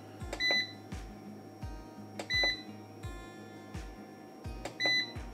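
Control-panel buttons on an MPP LV2424 hybrid solar inverter beeping three times, one short high beep with each press as the display pages are stepped through: about half a second in, after two seconds, and near the end. Background music with a steady beat runs underneath.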